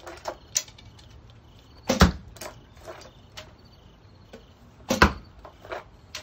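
Two bow shots about three seconds apart, each a sharp bowstring snap followed at once by the arrow's loud thud into the target. Lighter knocks and rattles fall between the shots.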